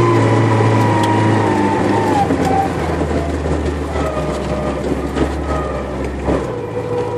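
Engine of an off-road vehicle driving over a rough track, its note falling as it slows over the first couple of seconds, then running lower and picking up again near the end.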